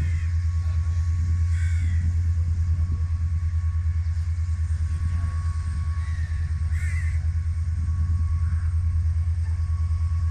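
Diesel locomotive engine running with a steady, rapidly pulsing low rumble, while crows caw a few times over it.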